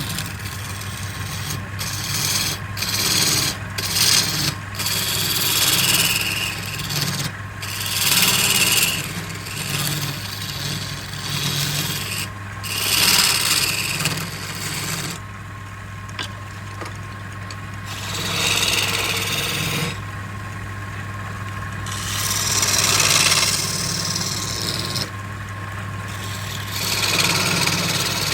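Wood lathe running with a steady motor hum while a turning tool cuts the spinning wood, giving repeated scraping, rasping bursts a second or two long that come and go.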